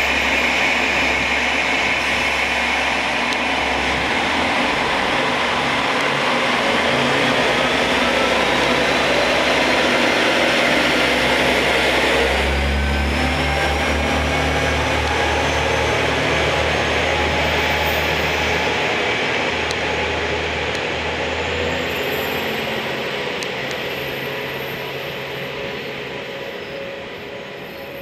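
KiHa 47-based etSETOra diesel railcar pulling away from a station platform. The diesel engine runs under load with a whine that rises as the train gathers speed and changes note about halfway through. The sound fades steadily over the last several seconds as the train draws away.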